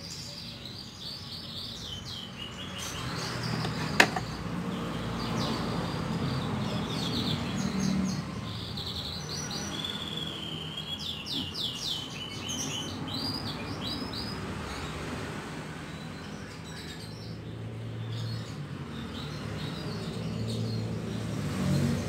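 Canaries chirping and twittering in quick, high runs throughout, with a single sharp click about four seconds in.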